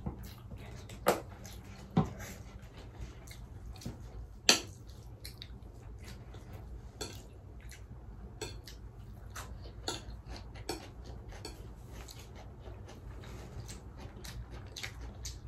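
Eating utensils clinking and scraping against plates and bowls during a meal: a scattered run of light clicks, with sharper knocks about one, two and four and a half seconds in, over a steady low hum.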